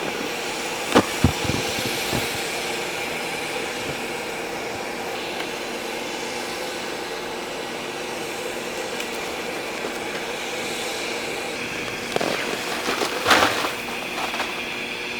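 A steady hum with several fixed tones, two or three sharp knocks about a second in, and a short rushing scrape near the end.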